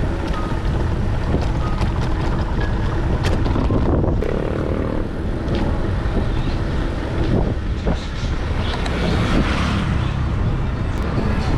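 Wind rumbling on the microphone while riding a mountain bike on a rough road, with scattered clicks and rattles from the bike.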